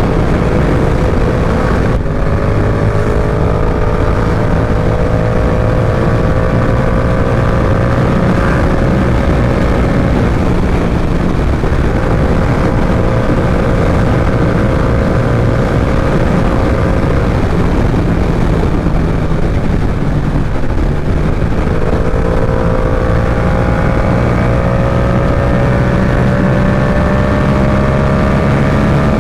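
Yamaha R7's parallel-twin engine running under load at road speed, its pitch climbing slowly, easing off twice and climbing again, under heavy wind rush on the rider's microphone.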